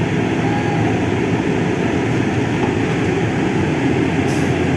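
Heavy diesel equipment engines running loud and steady, with a short hiss about four seconds in.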